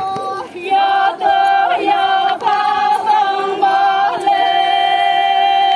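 A group of Konyak Naga women singing a folk dance song together, in short repeated notes and then one long held note from a little after four seconds in.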